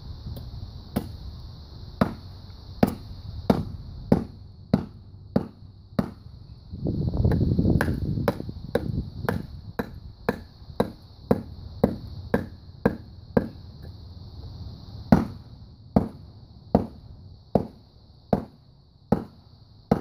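Hatchet chopping into a resin-soaked pine knot (fat wood): a run of sharp chops, about one and a half a second, with a short break about seven seconds in.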